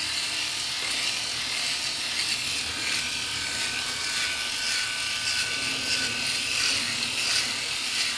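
SURKER KS-9390 rotary electric shaver running steadily while pressed and moved over short stubble, its buzz mixed with the noise of the heads cutting the hair.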